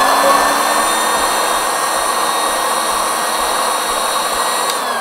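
Handheld electric air pump running steadily with a quite loud, high motor whine as it blows air into an air mattress through its valve. It is switched off near the end and the whine falls away.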